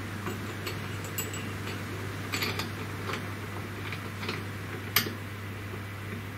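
Scattered small clicks and ticks of metal hardware as a T-slot bolt hold-down clamp is tightened by hand, the sharpest click about five seconds in, over a steady low hum.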